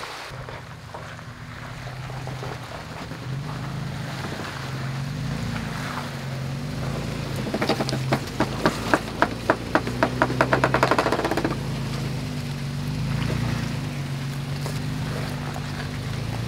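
Toyota FJ Cruiser's V6 engine running at low revs as it crawls up rock and dirt, its pitch rising and falling a little with the throttle. Midway comes a run of sharp clicks, about four a second, for a few seconds.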